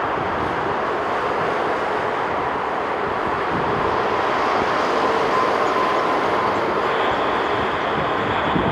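Jet engines of an airliner on approach to land: a steady rushing noise that grows a little louder partway through, with a faint engine whine held for a few seconds in the middle.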